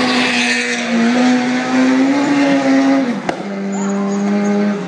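Four-wheel-drive rallycross cars racing, engines at high revs, with a pitch that climbs slightly and then drops about three seconds in, followed by a sharp click and a steady, lower engine note.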